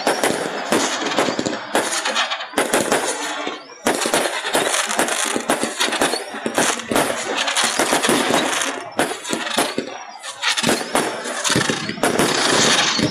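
Fireworks display: a dense run of bangs and crackling from aerial shells bursting, with brief lulls about three and a half and ten seconds in. The sound is harsh and overcompressed by a phone's microphone.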